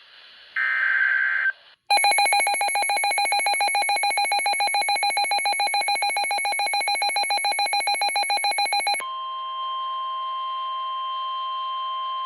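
Emergency Alert System signalling tones. About half a second in there is a one-second burst of buzzing data tone. Then a harsh, rapidly pulsing electronic alert tone runs for about seven seconds and gives way to a steady single tone.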